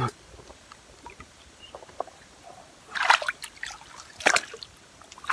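Shallow stream water splashing and sloshing as a hand presses a mesh crab trap down into it, with a few small knocks first and then two bursts of splashing, about three seconds in and just after four seconds.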